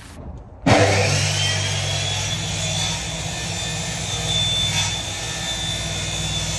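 Electric drill starting suddenly about a second in and then running steadily with a high whine as it bores a corner hole for a window aperture in the truck's habitation box wall.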